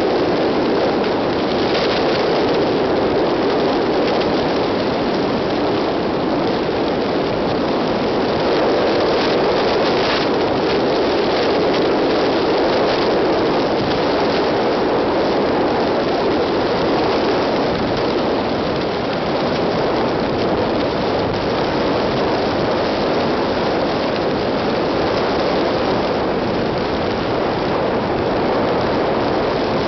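Steady road noise of a car cruising at expressway speed, heard from inside the cabin: tyres on asphalt and wind make an even rushing sound.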